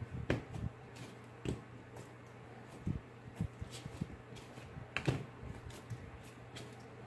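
Scattered soft taps and knocks as hands handle a lump of clay slime on a tabletop, with two louder knocks about a third of a second in and about five seconds in. A steady low hum runs underneath.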